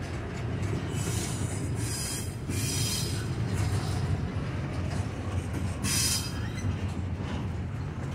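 Double-stack intermodal train's well cars rolling past, a steady low rumble of steel wheels on rail, with brief high-pitched wheel squeal about a second in and again near six seconds.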